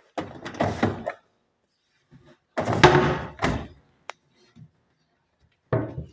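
Doors and fittings of an Indesit front-loading washing machine being handled, giving clattering plastic bumps and thunks. There is a cluster of knocks about a second long near the start, a louder cluster around three seconds in, a single sharp click about four seconds in, and a short knock near the end.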